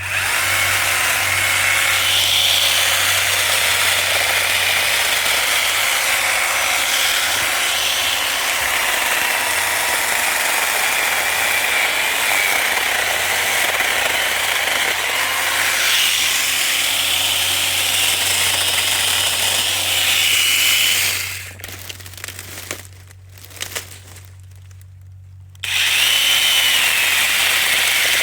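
Cordless battery chainsaw running, its electric motor whine shifting slightly in pitch. It stops about three-quarters of the way through, leaving a few clicks for about four seconds, then runs again.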